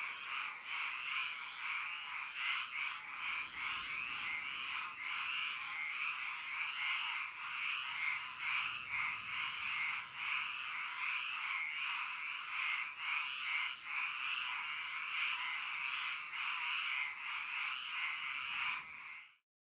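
A chorus of many frogs calling at once, a dense wall of overlapping calls at a steady level, which cuts off abruptly near the end.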